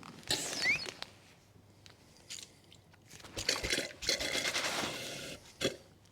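Handling noises while excess brake fluid is drawn out of the brake fluid reservoir: irregular bursts of scrunching and scraping, a short one near the start and a longer spell in the second half, ending with a sharp click.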